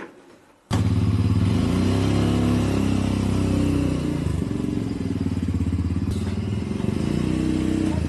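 Three-wheeled motorcycle engine running as the trike rides away, coming in abruptly about a second in and holding steady with small changes in pitch.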